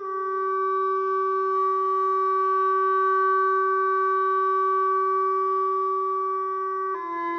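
Background music: a wind-instrument melody holding one long steady note, moving on to other notes near the end.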